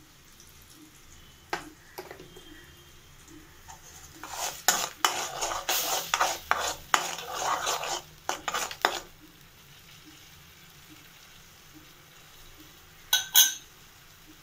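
Metal spatula scraping and clattering in an aluminium kadai, stirring ginger-garlic paste as it fries in oil. The stirring runs for about five seconds in the middle, and two sharp metal knocks come near the end.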